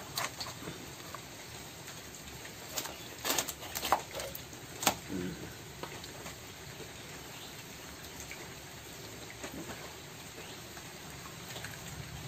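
A large katla fish's head being cut off on a boti blade: soft wet squelching of flesh and gills, with a few sharp cracks, loudest in a cluster about three to five seconds in.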